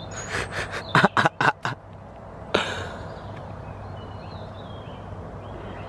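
A duck quacking loudly, a quick run of about six calls in the first two seconds, then one short harsh burst. Faint birdsong follows.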